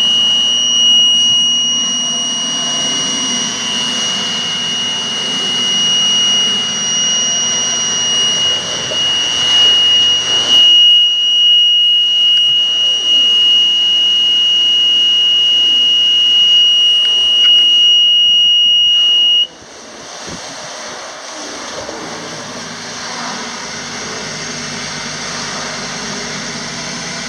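Common alarm sounder giving one continuous high-pitched tone over steady machinery noise. The tone cuts off suddenly about two-thirds of the way through as the alarm is silenced, and the machinery noise carries on.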